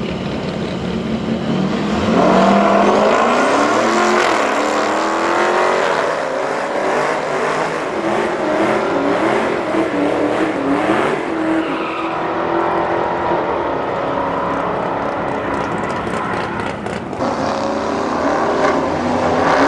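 A Dodge Hellcat's supercharged V8 and a lifted pickup truck launching together off a drag-strip start line about two seconds in and accelerating hard, the engine pitch climbing and falling back with each gear shift as they pull away. Near the end, engines idling at the line, with one starting to rev up.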